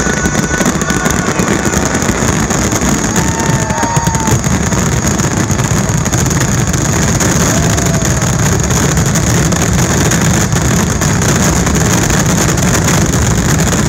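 Fireworks finale: a dense, continuous barrage of bursts and crackling that merges into a steady roar.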